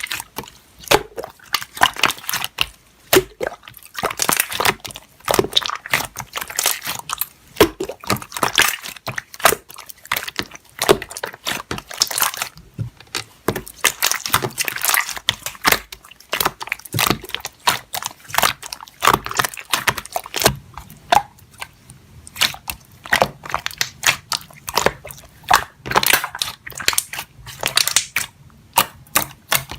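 Slime being kneaded and pressed by hand: a dense, irregular run of sticky pops, clicks and crackles.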